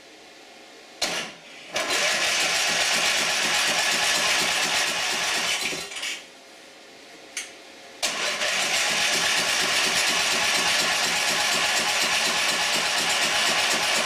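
Electric starter cranking a lawn tractor's Briggs & Stratton engine in two long tries, about four seconds and then about six seconds, with a short pause between. The engine turns over but does not catch, which the owners put down to a fuel solenoid that is not clicking.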